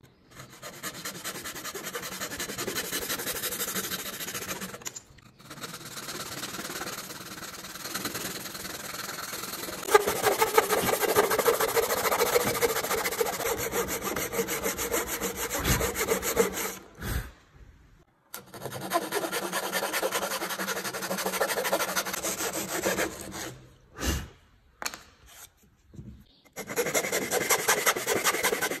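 A hand tool working wood with rapid rubbing strokes, like a saw cutting or a rasp shaping a joint. It goes in several long runs with short pauses between them, loudest in the middle stretch.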